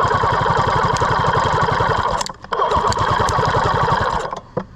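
Classic Army M134-A2 airsoft minigun firing in long, rapid bursts, its motor spinning the barrels with a fast even stream of shots. It breaks off briefly a little past two seconds in, then fires again and stops near the end.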